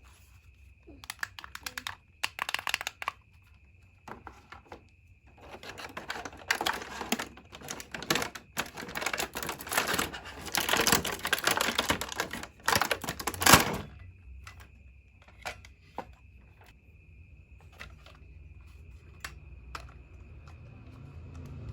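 Plastic being handled, crinkling and clicking in quick bouts: a dense run through the middle, then only scattered single clicks. A faint steady high tone sits underneath.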